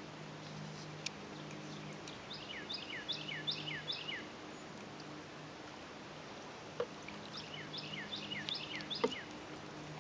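A songbird singing two phrases of five or six quick whistled notes, each falling sharply in pitch, about two seconds in and again near the end, with a few sharp knocks in between.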